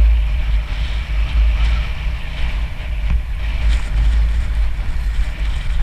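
Wind buffeting the camera microphone: a heavy, steady low rumble with a faint hiss above it.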